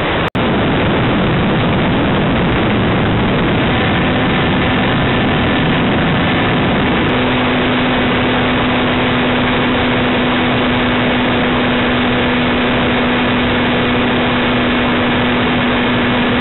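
Rush of wind with the motor and propeller of a quarter-scale model aircraft in flight, heard from a camera mounted on its fuselage. A steady hum comes up stronger about seven seconds in.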